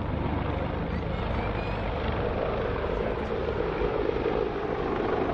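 Military helicopters flying, a steady rotor and engine drone with fast low pulsing from the blades.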